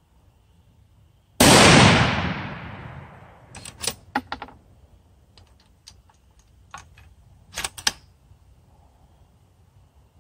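A single shot from a Savage .243 Winchester bolt-action rifle about a second and a half in, its report dying away over about two seconds. Then sharp metallic clicks in two clusters with lighter ticks between: the bolt being worked to eject the spent case and chamber the next round.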